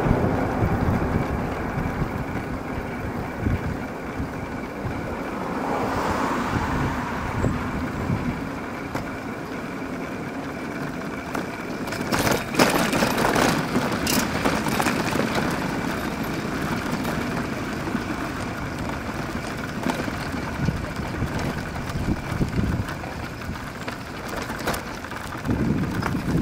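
Steady road traffic noise from motor vehicles, with a cluster of sharp clicks about halfway through.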